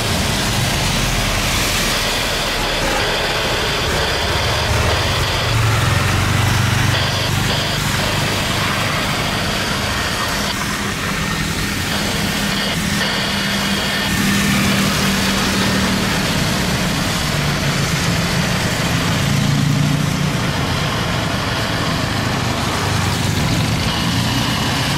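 Boeing 767 freighter's twin jet engines on landing approach and touchdown: a steady rushing jet noise with a low drone that rises and falls slightly, and a faint high whine on top.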